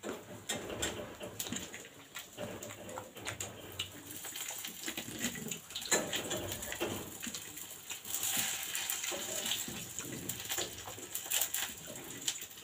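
Close-up wet chewing and lip-smacking, mixed with fingers squishing and kneading rice against a steel plate: a steady run of small clicks and smacks, a little louder in the second half.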